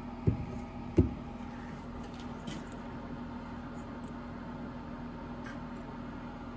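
Two dull knocks close together near the start, with a few faint light clicks later, as motorcycle clutch parts are handled on a wooden workbench. A steady low hum runs underneath.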